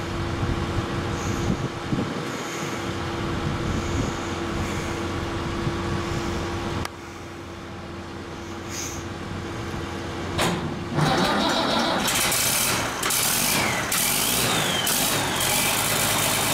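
Ford TW25 tractor's six-cylinder turbo diesel started with its exhaust and manifold off, catching about ten seconds in and then running loud and open, straight out of the turbo, with a whine that rises and falls. Before it catches there is a steady hum with a tone in it.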